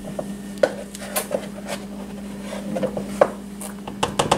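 A scoop knocking and scraping against containers as a dry baking ingredient is scooped into a mixing bowl: irregular clicks and scrapes, with one sharper knock about three seconds in.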